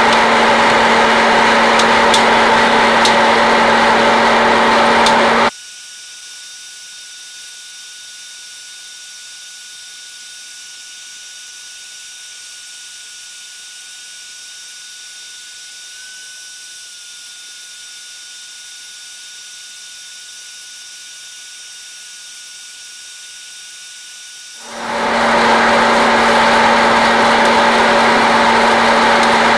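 Hot-air popcorn popper roasting coffee beans: its blower fan and motor run with a steady rushing noise and a low hum. The noise cuts off abruptly about five seconds in, leaving only a much quieter steady high tone, and fades back in about five seconds before the end.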